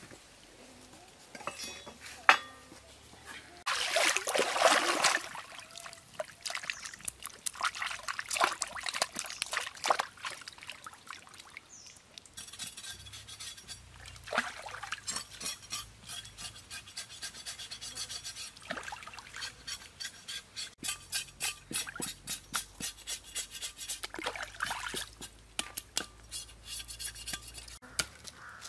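Water splashing and sloshing as a pig's head is washed by hand in shallow creek water, with a long run of quick, regular scrubbing strokes in the second half.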